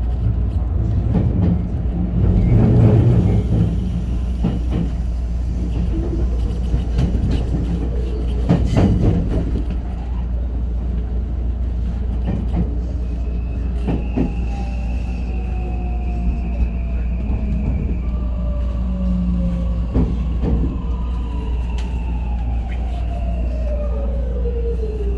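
A JR West 521 series electric train running on the rails: steady wheel rumble with sharp clacks over rail joints. From about halfway, the VVVF inverter and traction motors give a whine that falls steadily in pitch as the train brakes into a station; the inverter is one the uploader takes for a Mitsubishi IGBT type.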